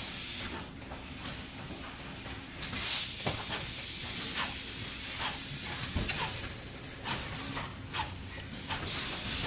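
Festo pick-and-place robot arm, driven by a DNCE rod-style actuator, running through its cycle: a steady low hum with light clicks about once a second and a short hiss about three seconds in.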